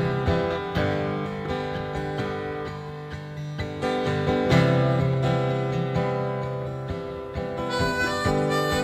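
Live acoustic guitar strumming under a harmonica melody, recorded at a concert and played back from cassette tape.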